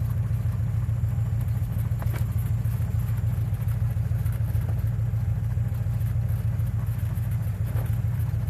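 Cessna 172's piston engine and propeller running at low taxi power, a steady low drone heard inside the cabin.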